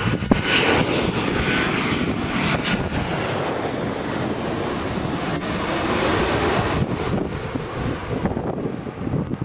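Airbus A320-232 turbofan airliner on landing approach passing low overhead, a loud steady jet rush with a faint high whine that drops slightly in pitch as it goes over, easing off near the end.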